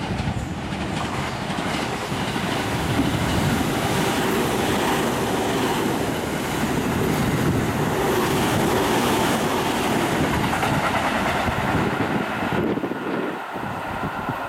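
JR East E257 series limited express electric train running through the station at speed: a steady rush of wheel and running noise that eases slightly near the end as the last cars go by.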